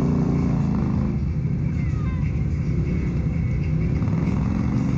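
ATV engine running steadily.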